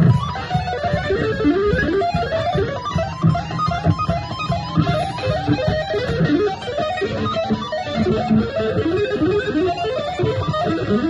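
Live electric guitar playing a busy line of quick single notes that rise and fall, with drums keeping time underneath.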